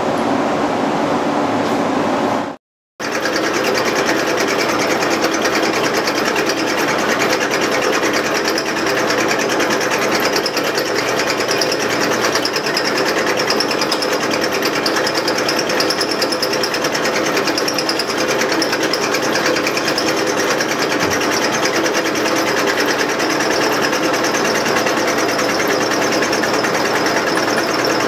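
Drill press motor running steadily with its bit drilling into steel, a continuous mechanical whine that holds a few steady pitches. About three seconds in, a different steady machine background cuts off abruptly just before the drilling begins.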